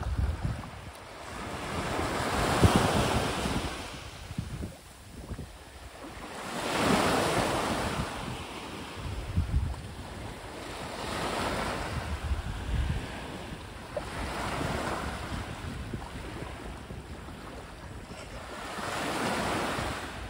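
Small sea waves breaking and washing up a pebble beach, each surge swelling and falling away about every four seconds, with wind buffeting the microphone.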